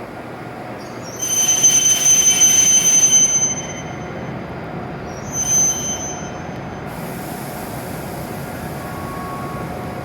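W7 series Shinkansen train moving slowly along the station platform with a steady rumble. A high-pitched metallic squeal rings out for about two seconds and then briefly again. A steady hiss begins about two-thirds of the way through.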